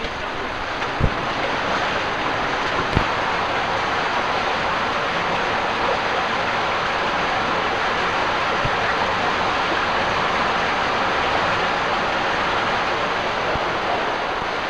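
Steady rushing of water in an underground cave stream, with two short knocks in the first few seconds.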